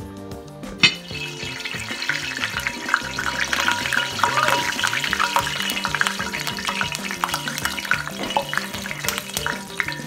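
Hot frying oil in a pan sizzling and crackling, starting with a sharp clack about a second in, with background music playing.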